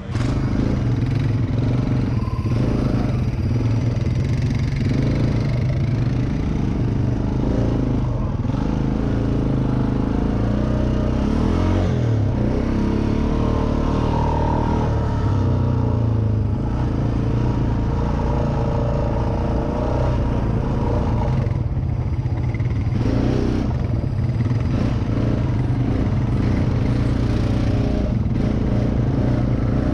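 ATV engine running steadily at riding speed on a dirt trail, heard close up from the machine itself, with small rises and falls in engine speed.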